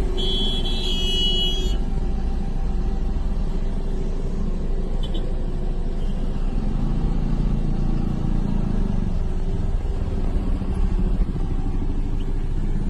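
Roadside traffic noise: a steady rumble of vehicle engines. A short, high-pitched horn-like tone sounds in the first two seconds.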